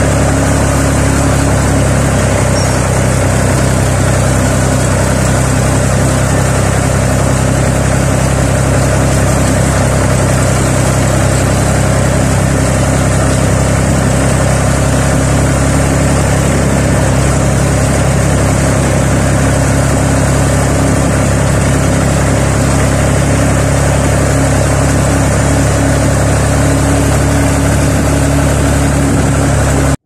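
Massey Ferguson 135 tractor engine running steadily under way, heard close from the driver's seat, with no change in engine speed.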